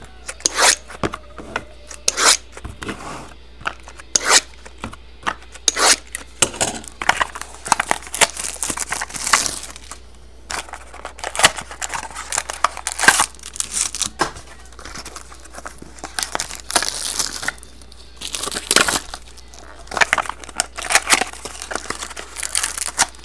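Trading-card box packaging being torn and crinkled open by hand: irregular ripping and crackling rustles with short pauses between them.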